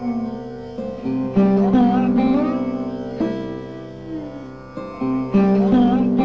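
Sarod playing a slow passage in raga Shankara: a few plucked notes, several sliding up or down in pitch, over a steady tanpura drone.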